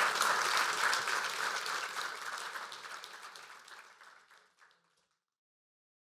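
Audience applauding, a dense patter of many hands clapping, fading steadily away until it ends about five seconds in.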